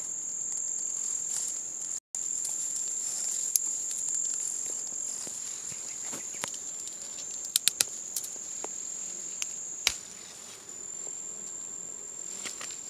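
A steady high-pitched insect trill runs throughout. A few sharp clicks break in, three of them in quick succession a little past halfway.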